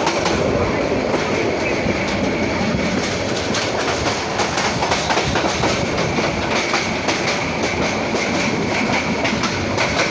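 Passenger train running at speed, heard from an open doorway of one of its coaches: a steady rumble of wheels on the rails with irregular clicking and clattering, and a faint steady high whine.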